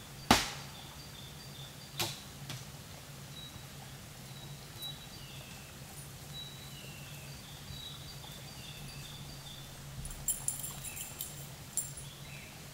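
Quiet woodland ambience with faint, high, short bird chirps repeating through it and a steady low hum underneath. A sharp snap sounds about a third of a second in and is the loudest thing, a softer one comes about two seconds in, and a cluster of faint crackles follows near the end.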